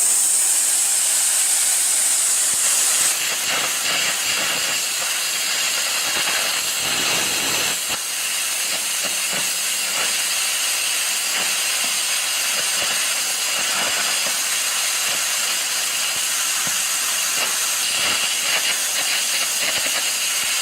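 Air carbon arc gouging: a 1/4-inch carbon rod arcing on steel plate while a compressed-air jet blasts the molten metal away, a loud continuous hiss with crackling throughout, as a hole in the plate is widened.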